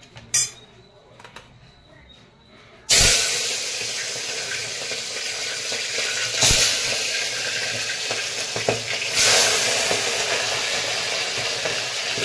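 Chicken liver and gizzard pieces frying in hot oil in an aluminium pressure cooker: after a few light clinks of utensils, a loud sizzle starts suddenly about three seconds in and runs on steadily. A few knocks of a utensil against the pot come through the sizzle.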